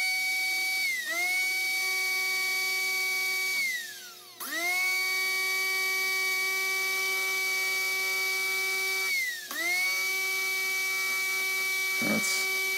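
Pancake motor armature spinning at about 19 volts in a slot-car mule chassis, a high-pitched electric motor whine. The whine sags and recovers about a second in, then twice drops in pitch and spins back up, about four and nine seconds in. The arm runs rough: it is the worst out-of-balance armature of the batch, before dynamic balancing.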